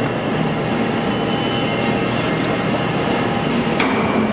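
A 1974 Blanchard 22K-42 vertical-spindle rotary surface grinder running during its magnetic chuck's demagnetizing cycle: a steady machine hum with several steady tones. A sharp click comes about four seconds in.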